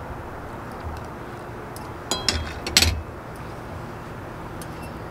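Forks and spoons clinking against plates: a few sharp, ringing clinks just after two seconds in and a louder one near three seconds, over steady background noise.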